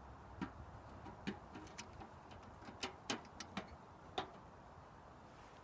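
Wood fire crackling inside a small homemade ammo-can wood stove: scattered sharp snaps at uneven intervals, a few louder ones around the middle and about four seconds in.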